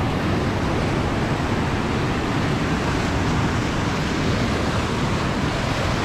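Mountain creek whitewater rushing and churning over boulders through a narrow rock gorge: a loud, steady rush of water.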